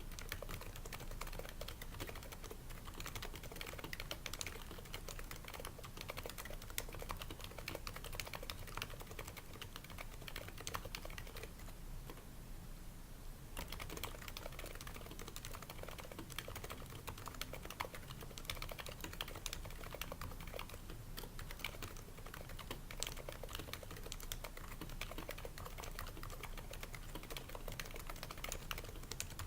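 Steady typing on an HHKB Pro 2 with Topre rubber-dome capacitive switches, each keystroke a soft, damped thock: the switches are fitted with o-rings to cushion bottom-out, the slider rails are lubed and the case is lined with shelf liner. The typing stops for about two seconds near the middle, then resumes.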